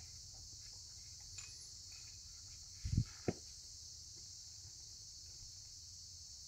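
Steady high-pitched drone of insects, with two short thumps about three seconds in, the second one sharper.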